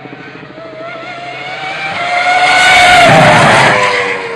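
Red Bull Formula One car's V8 engine at high revs passing at speed. The engine note climbs and grows loud as it approaches, is loudest about three seconds in, then drops in pitch and fades as it goes away.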